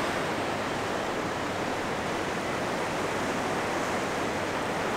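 Ocean surf washing onto a beach, a steady even rush of noise with no distinct waves or calls standing out.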